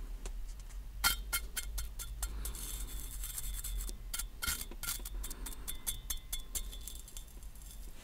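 Cigarette crackling and clicking, a fast irregular run of small clicks. It starts about a second in and thins out near the end, and some of the clicks carry a slight ringing.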